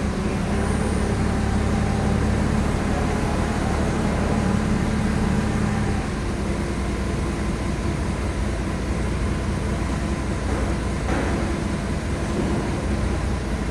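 Heavy vehicle's engine running with a steady low drone and road noise, the drone easing off about six seconds in.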